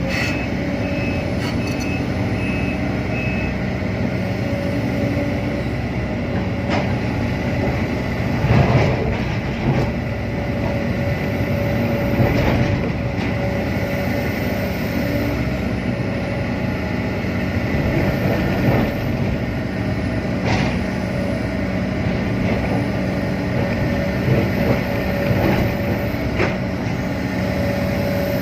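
Excavator's diesel engine running steadily as the machine works. A few short, evenly spaced beeps sound in the first few seconds, and there are occasional sharp knocks.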